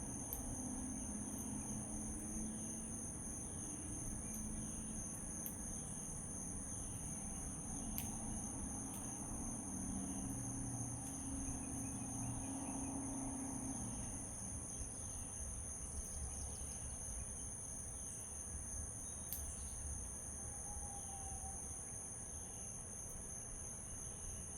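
Steady outdoor insect chorus of two continuous high-pitched trills, with faint short bird chirps repeating under it.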